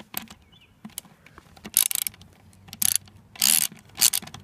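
Socket ratchet wrench clicking in short bursts, one per back-stroke, as it is worked back and forth undoing the bolts of a lawn mower transaxle case.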